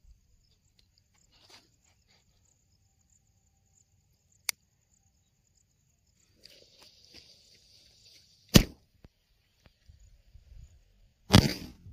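A sutli bomb's fuse fizzes for about two seconds, then the firecracker goes off with a sharp loud bang inside a plastic pipe. About three seconds later comes a second, louder and longer bang as the other of the two tied-together sutli bombs explodes.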